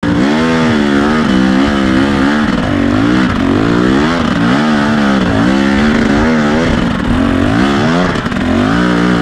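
KTM 250 EXC two-stroke dirt bike engine revving up and down under load on a steep climb, its pitch rising and falling about once a second as the throttle is worked.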